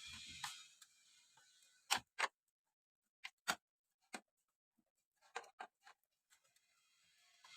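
Irregular sharp clicks and knocks, a dozen or so spread unevenly with quiet gaps, from handling a vintage Sanyo M9802AK radio cassette player during repair. A hiss fades out at the start and builds again near the end.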